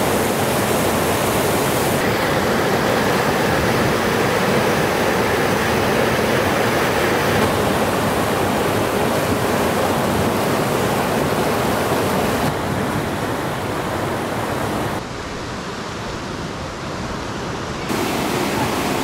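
River rapids rushing: a steady, loud wash of whitewater. It drops somewhat quieter a little past the middle, quieter again for a few seconds, and comes back loud near the end.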